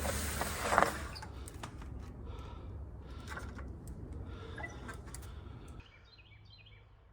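Mountain bike rolling over a dirt trail, with tyre noise and scattered clicks and knocks from the bike. It goes quieter at about a second in and again near the end, as the bike slows to a stop. A few faint bird chirps come in near the end.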